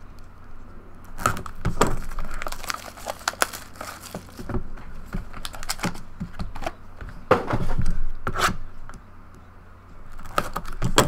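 Cardboard trading-card box and packs being torn open and handled by hand: irregular tearing and crinkling with sharp snaps of card stock, easing off briefly near the end.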